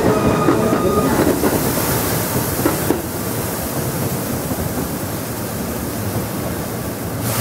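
Automatic train washer spraying water over a Keikyu electric train as it creeps through, a steady rushing hiss. A few short whining tones from the train sound in the first second.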